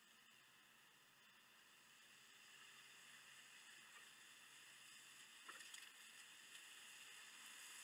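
Near silence: a faint steady hiss that slowly grows louder, with a couple of faint clicks.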